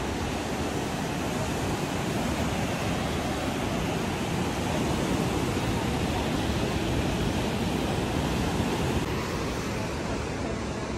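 Sea surf washing over rocks and the shore, a steady rushing wash of noise.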